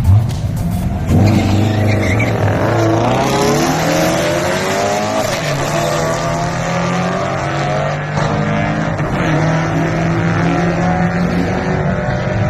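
An engine running steadily. Its pitch climbs over the first few seconds, then holds fairly level.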